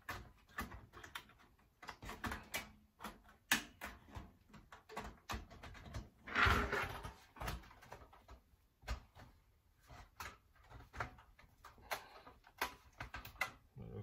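Sheet-metal side panel and casing of a Panasonic NB-G110P toaster oven being pried and pulled off: scattered light clicks and knocks of metal, with one longer scraping rasp about six seconds in as the casing slides free.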